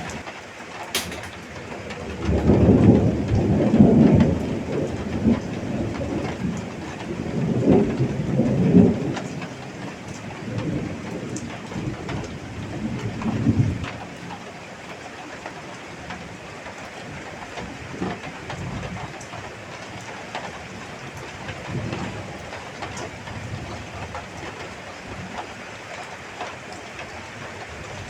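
Heavy rain falling steadily, with a long rolling rumble of thunder that starts about two seconds in, swells twice and dies away about halfway through. A couple of faint low rumbles follow later.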